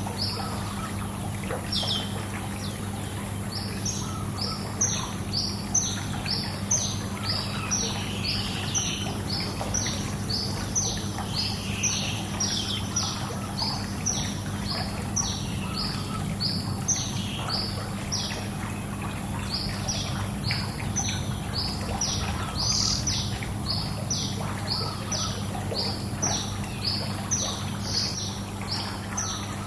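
Small birds chirping in a quick series of short falling chirps, about two a second, over steady pool-water noise and a low steady hum.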